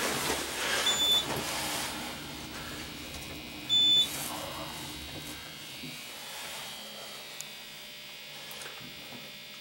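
Steady hum inside an elevator car, with two short high electronic beeps from the elevator, a faint one about a second in and a loud one about four seconds in.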